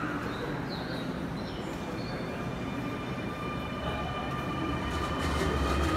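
Subway train approaching through the tunnel into an underground station: a rumble that grows louder over the last couple of seconds, with a thin steady high whine from the wheels on the rails.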